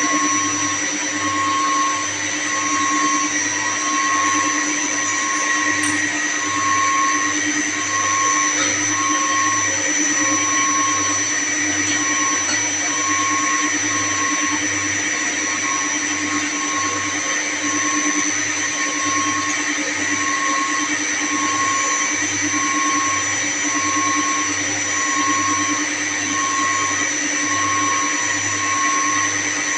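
Steady, unchanging drone of running chilled-water plant machinery, with several steady tones and a faint tone pulsing on and off about once a second.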